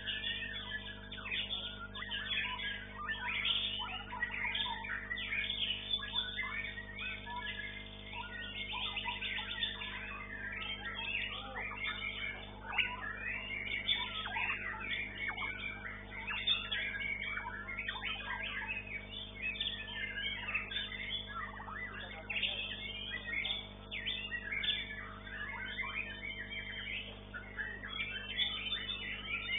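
White-rumped shama (murai batu) song: dense, continuous rapid chirps and whistles.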